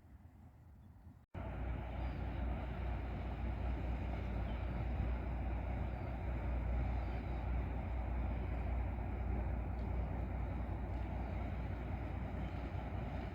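A passing ship's engine running with a steady low drone, mixed with a steady rush of noise. It starts abruptly about a second in, right after a brief dropout.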